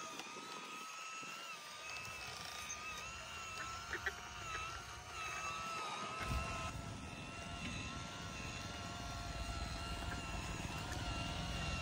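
Small motor of a handmade remote-controlled mini Massey Ferguson 385 tractor whining steadily as it hauls a heavily loaded sugarcane trolley, its pitch wavering slightly with the load. A low rumble joins about halfway through.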